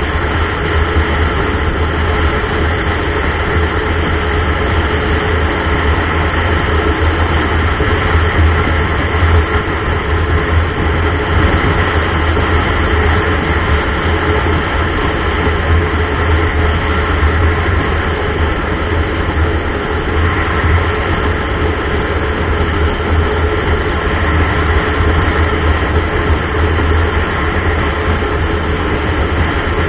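Motorcycle cruising at a steady road speed: a continuous low engine and road drone that stays even, with no change in pace.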